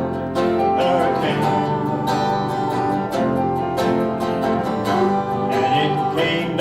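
Live acoustic country band music: plucked guitar strings playing a steady instrumental passage, with no singing.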